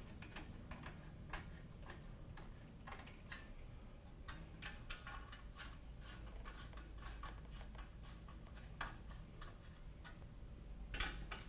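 Faint, irregular light clicks and ticks of hand tools working the clamps and fasteners on a motorcycle's chrome exhaust heat shields, with a louder cluster of clicks near the end.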